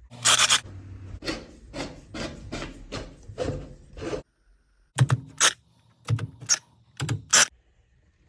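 Back-and-forth scraping or rubbing strokes on a hard surface: a quick run of about nine strokes, a short pause, then three pairs of strokes.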